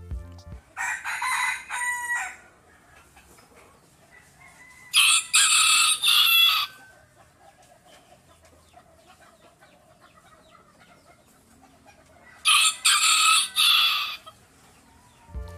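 A rooster crowing twice, each crow about two seconds long, the first about five seconds in and the second near the end, with a few shorter calls about a second in.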